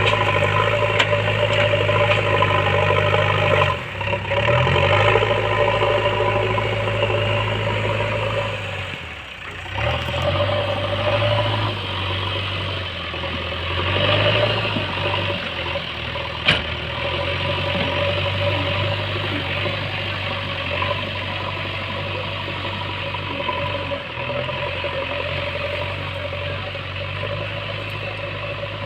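Diesel engine of a JCB backhoe loader running steadily under work, its pitch shifting briefly a couple of times as the load changes, with a single sharp knock about halfway through.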